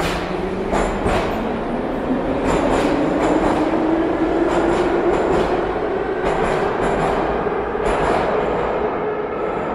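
Metro train pulling out of the station: the motors' whine climbs slowly in pitch as it gathers speed, with a run of clicks and clatter from the wheels.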